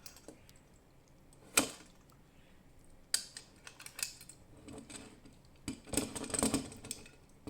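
Hand handling a plastic fire alarm device: scattered sharp clicks and knocks, a loud single click about a second and a half in and a short run of clicking and rattling near the end.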